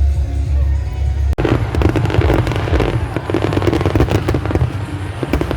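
Fireworks going off: dense rapid crackling over deep low booms, starting abruptly about a second in after a deep steady rumble.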